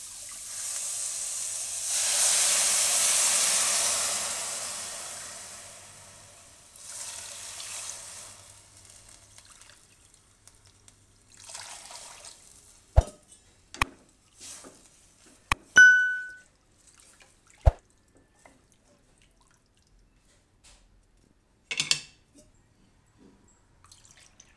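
Water poured from a measuring cup into a hot wok of sautéed onion and sprouted fenugreek, splashing and hissing for several seconds, loudest early, with a second shorter pour about seven seconds in. Later come scattered sharp knocks of utensils and a short ringing clink.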